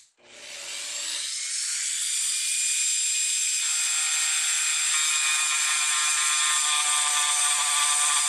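Handheld high-speed rotary tool with a small burr, spinning up and then running steadily as it carves a shallow hollow into a wooden dowel: a constant high-pitched whine.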